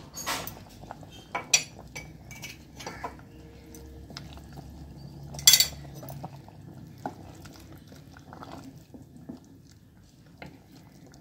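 A spoon and a wooden spatula clinking and knocking against a metal pressure-cooker pot as ground pepper is stirred into soup. A bright clink about five and a half seconds in is the loudest.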